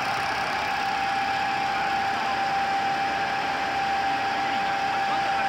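GIDUE MASTER Combat flexographic label press running at steady speed: a constant machine noise with a single steady whine held at one pitch.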